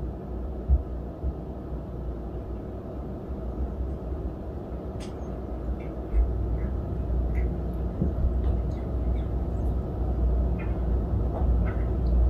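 A cat chewing and tearing at cat grass, heard as small crisp crunches and snips from about halfway through, over a steady low rumble.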